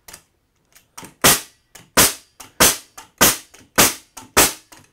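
Pneumatic 15-gauge finish nailer firing 2.5-inch nails into a block of lumber: six sharp shots about every 0.6 s, starting a little over a second in, each with a lighter tap just before it. Each nail is driven fully below the surface.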